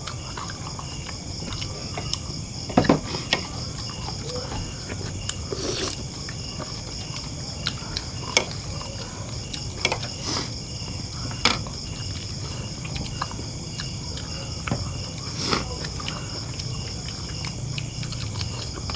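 Night insects chirring steadily in a high, pulsing drone, with scattered light clicks and taps from people eating by hand at a table set with plates and a curry pot.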